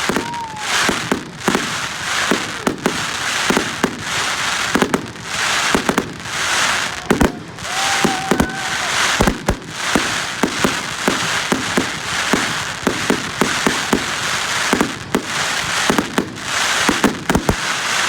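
Fireworks and firecrackers going off in quick succession: many sharp bangs and crackling bursts, with a couple of brief whistling tones.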